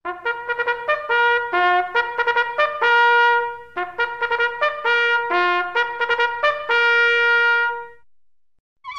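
Solo trumpet playing a quick run of short tongued notes that ends on a long held note. After a brief pause it plays a second, similar run that also ends on a held note.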